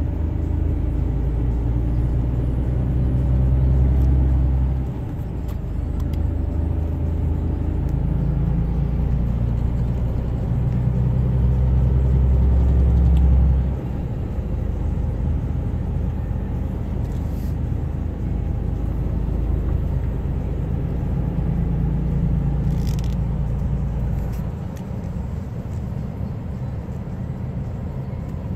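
A motor vehicle running, a low drone that shifts in pitch and level a few times, dropping sharply about halfway through.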